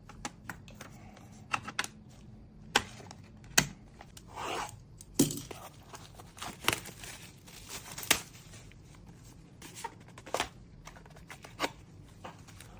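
Hands handling computer parts during a PC build: a string of sharp plastic and metal clicks and knocks, with a short tearing sound about four and a half seconds in.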